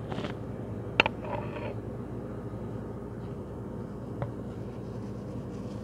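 Steady low hum of an indoor room, with a sharp click about a second in and a fainter click about four seconds in.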